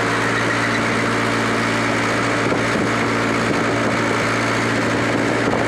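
Mahindra 575 tractor's four-cylinder diesel engine running steadily at working RPM while driving a 7-foot rotavator through the soil, with an even, unchanging engine note.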